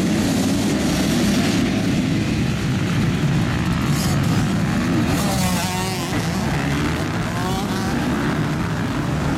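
A full field of motocross bikes accelerating hard together off the start line, a dense mass of many engines revving at once.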